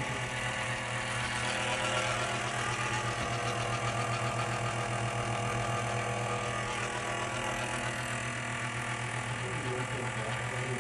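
APC SRV2KI UPS powered up and running, giving a steady buzzing hum with a fast, even rattle.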